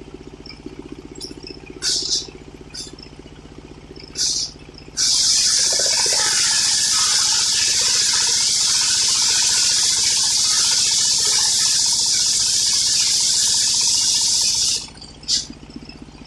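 Homemade circular-saw sawmill: its engine idles, the blade nicks the coconut-palm log a few times, then runs through a cut for about ten seconds with a loud, steady hiss that stops abruptly. The engine hum returns at the end, with one more short nick.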